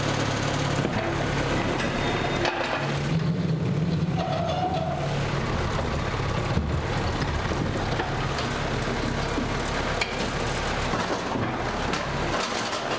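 Box truck's engine idling with a steady low hum, with a few knocks and rattles of heavy machinery being moved.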